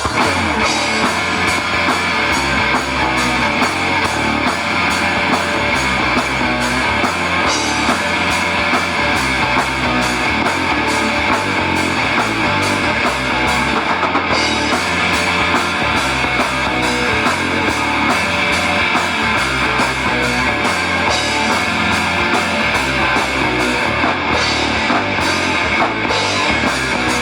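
Live rock band playing an instrumental passage with guitar and drum kit, at a loud, steady level.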